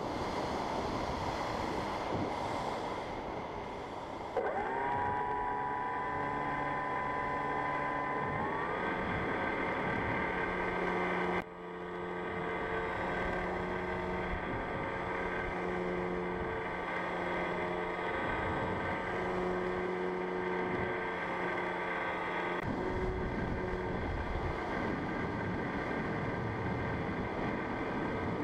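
Wind rushing over the onboard microphone of a fixed-wing FPV plane. About four seconds in, the plane's electric motor and propeller start up as a steady whine with several tones. The whine steps up in pitch about four seconds later, dips sharply for a moment near the twelve-second mark, and then runs on steadily under power.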